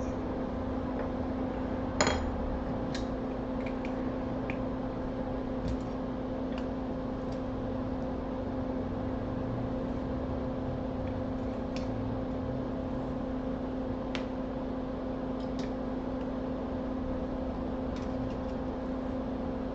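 Steady hum of a small fan motor at a microsoldering station, with scattered light ticks of small metal tools; the sharpest tick is about two seconds in.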